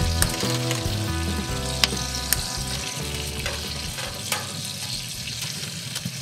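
Oil sizzling in a frying pan, with a few sharp spattering pops, while chopsticks stir the pan. Soft background music fades out over the first few seconds.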